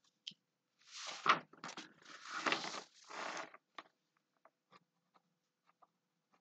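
Rustling and handling noise at a desk, about three seconds long starting about a second in, among light scattered clicks and taps.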